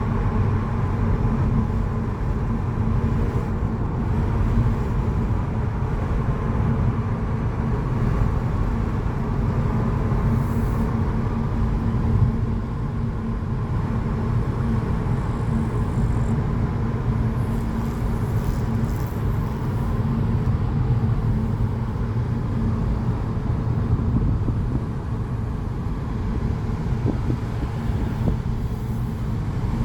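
Steady road noise and engine hum of a car driving, an even low rumble with no break.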